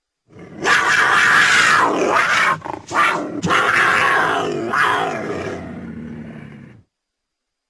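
Cougar (mountain lion) vocalizing: two long calls, the first about two seconds long, the second longer and fading off before it cuts out.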